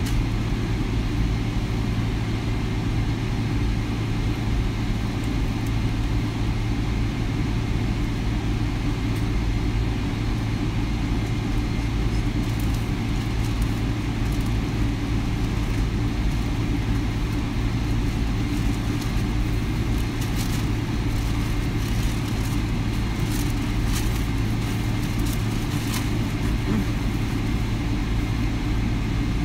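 Steady low cabin noise of a Boeing 787 Dreamliner, engines and airflow heard from inside the passenger cabin, even in level throughout. A few faint clicks sound in the second half.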